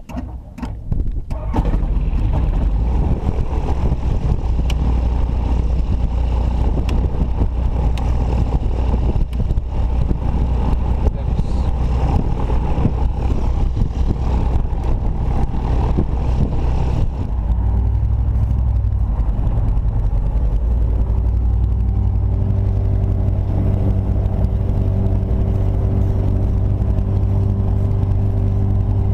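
Sling light aircraft's piston engine cranked by the starter and catching about a second and a half in, then running steadily with the propeller turning. About seventeen seconds in it settles into a smoother, steadier note.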